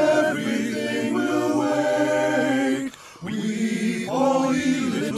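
A school men's choir singing sustained notes in two phrases, with a brief break about three seconds in.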